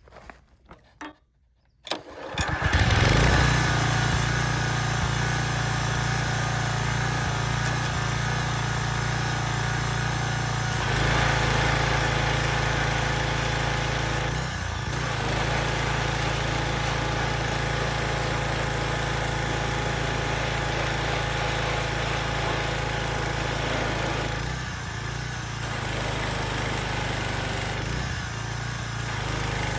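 Briggs & Stratton small engine on a Craftsman pressure washer starting about two seconds in, then running steadily, with a few small shifts in its sound. It runs smoothly now that its throttle linkage has been moved so it no longer gets hung up.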